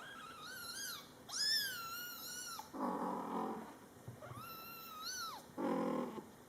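Scottish Fold kittens meowing: three high-pitched, wavering meows, the second the longest. Twice between them comes a short, lower, rougher call, the mother cat answering.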